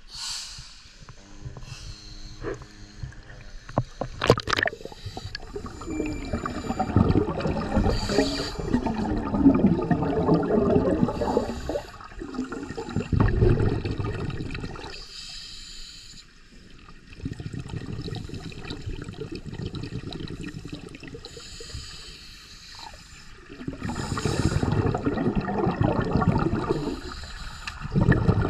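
Underwater bubbling from scuba regulator exhalations, loud stretches of a few seconds each with quieter gaps between breaths. A sudden splash about four seconds in.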